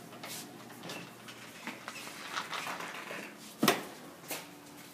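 Footsteps and small knocks in a small, bare room, with one sharp knock a little past halfway and a lighter one just after.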